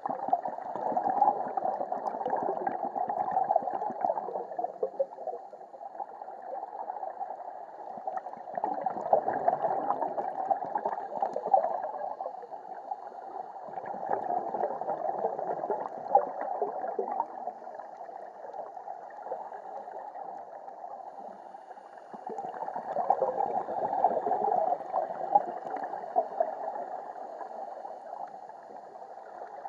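Scuba divers' exhaled breath bubbling out of their regulators, heard underwater, a muffled gurgling that swells in louder surges every several seconds with each breath out.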